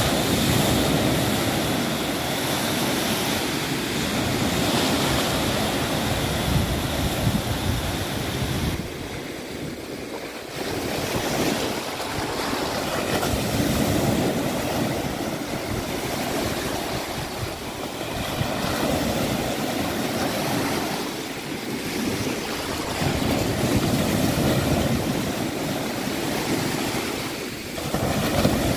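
Small sea waves breaking at the shoreline and washing up the beach. The surf swells and eases with each wave, with a brief lull about nine seconds in.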